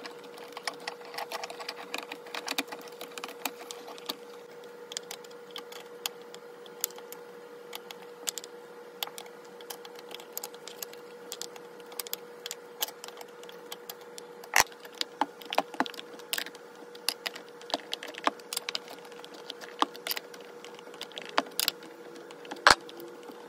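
Saw chain links and metal parts clinking and clicking irregularly as a chain and bar are fitted onto a Stihl 021 chainsaw by hand, with a few sharper clacks in the second half. A faint steady hum runs underneath.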